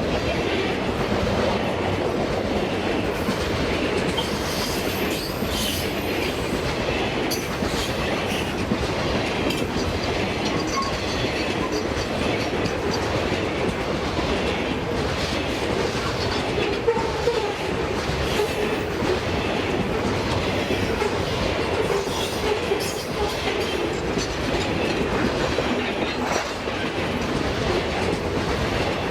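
Freight train wagons rolling past at a steady pace: a continuous rumble of wheels on rail with repeated clicks of the wheels crossing rail joints.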